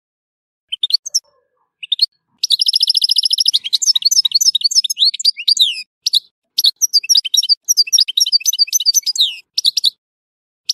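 European goldfinch singing. A few short call notes lead into a rapid buzzy trill about two and a half seconds in, which runs into fast, twittering song. The song breaks off briefly around six seconds in, resumes, and ends in a few separate calls.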